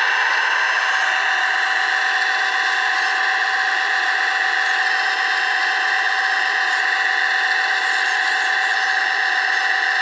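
Drive motors and gearing of a radio-controlled Caterpillar 973D track loader model whining steadily as it crawls on its tracks through deep snow.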